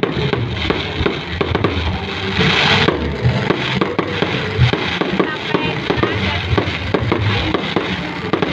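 Fireworks going off, with many sharp bangs and cracks in quick, irregular succession and a short loud hissing burst about two and a half seconds in.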